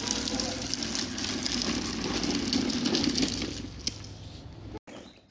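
Plastic wheels of a child's foot-powered ride-on toy car rolling over concrete paving stones: a steady rattling rumble that fades about four seconds in and then breaks off.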